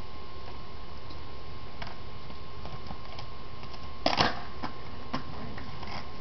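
Skateboard clacking on a concrete driveway: a loud cluster of sharp clacks about four seconds in as the board is popped up on its tail, then a few lighter single knocks.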